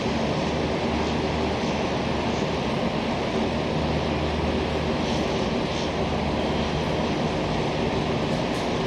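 Steady whirring hiss of a hovering camera drone's propellers and motors, with a faint low hum and no change in level.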